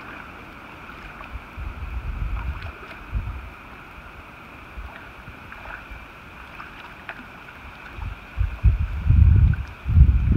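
Low rumbling gusts of wind on the microphone, once briefly about two seconds in and louder near the end. Under them runs the steady outdoor ambience of a slow river, with a faint high-pitched hum.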